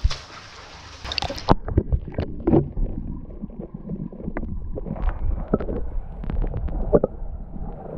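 Water sloshing and splashing at the surface, then about a second and a half in the sound turns suddenly muffled as the action camera goes underwater: dull bubbling, gurgling and short knocks of moving water heard through the submerged camera housing.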